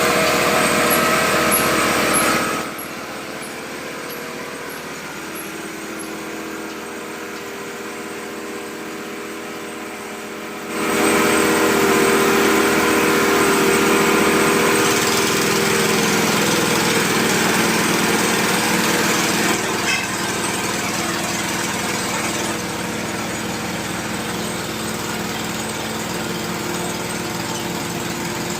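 Small petrol engine of a water-well drilling machine running steadily. It drops sharply in level about two and a half seconds in and comes back up about eleven seconds in.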